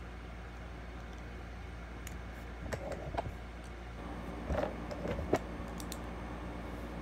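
Plastic Lego bricks and plates handled and pressed together: a few light clicks and rubbing, in one cluster about three seconds in and another around five seconds, over a steady low hum.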